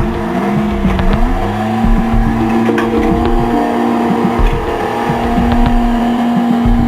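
An engine running under load, its pitch rising over the first couple of seconds and then holding steady, with scattered knocks and clunks.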